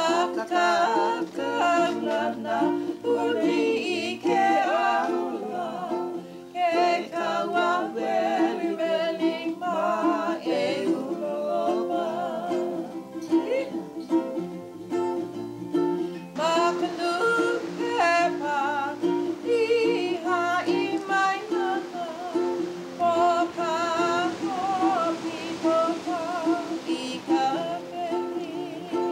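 A woman singing a Hawaiian-language song with a wavering voice, accompanied by a strummed ukulele.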